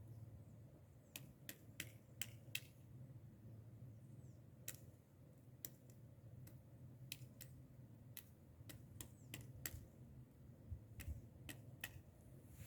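Woodpecker pecking at a tree: sharp single taps of beak on wood, coming irregularly, sometimes two or three in quick succession, then short pauses. These are scattered taps, not a fast drumming roll.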